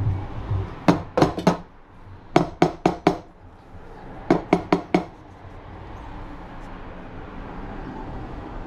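A stainless steel milk jug of steamed milk knocked on the counter in three quick runs of four or five sharp knocks, the barista's usual way of bursting large bubbles in the foam.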